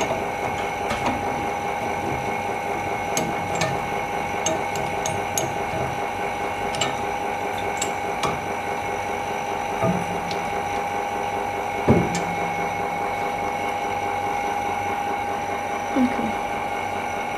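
A machine running with a steady hum and a few fixed whining tones, with scattered light clicks and a few dull knocks, the loudest about twelve seconds in.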